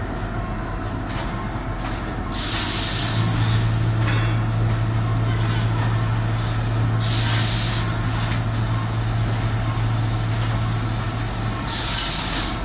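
Industrial weighing and packing machine running, with three short hisses of air about four and a half seconds apart. Under them a steady low hum sets in about three seconds in and stops near the end.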